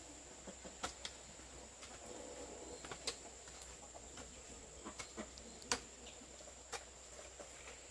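Quiet rural ambience: a steady high-pitched hum like insects, faint bird sounds, and several sharp clicks or knocks scattered through it.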